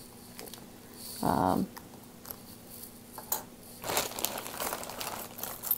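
Thin plastic bag crinkling and rustling as a pile of costume jewelry inside it is rummaged through, with small clicks of metal pieces knocking together. A short, louder sound comes about a second in, and the crackling is densest around four seconds in.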